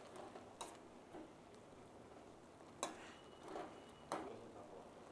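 A spatula scrapes and taps against a stainless steel kadai while stirring thick beetroot halwa. It gives a few faint, scattered clicks and scrapes over a quiet background.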